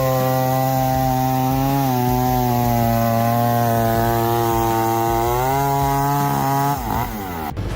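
Old diesel engine running hard and steady, its pitch sagging about two seconds in as it takes load and climbing back about five and a half seconds in, then gliding off near the end.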